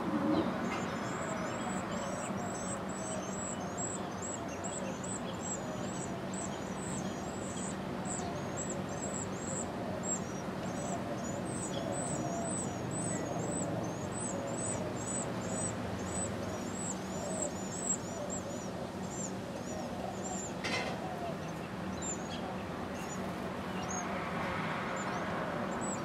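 Carolina wren nestlings begging: a fast run of thin, very high-pitched cheeps, several a second, while the parent is at the nest feeding them. The cheeps thin out to a few scattered ones after about twenty seconds, over a low steady hum.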